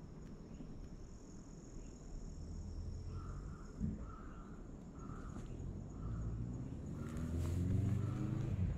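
A steady, high insect buzz, with a short call repeating about every 0.8 s from a few seconds in. In the last few seconds a vehicle engine grows louder and rises in pitch, becoming the loudest sound.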